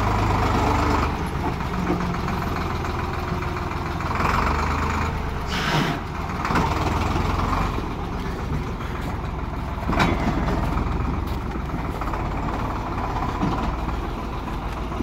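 Engine of a wheeled snow-clearing tractor with a front blade, running steadily as it pushes through snow. There is a short burst of noise about six seconds in and a brief knock about ten seconds in.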